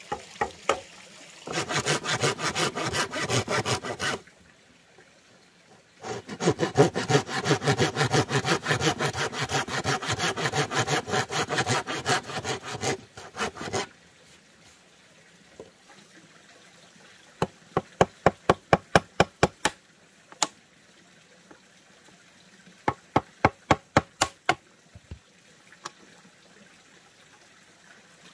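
Hand saw cutting across a green bamboo pole in quick back-and-forth strokes: a short run, then after a pause a longer one of about eight seconds. Later come two runs of sharp knocks as the notch between the two saw cuts is chopped out with a blade.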